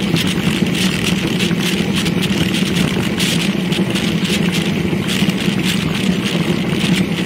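Steady rush of wind over the microphone and road-bike tyre noise on asphalt at about 35 km/h, with frequent small knocks and rattles from bumps in the path.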